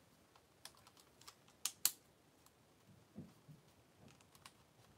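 Hard plastic parts of a transforming Zord toy clicking as they are handled and repositioned: scattered light clicks, the loudest two close together a little under two seconds in.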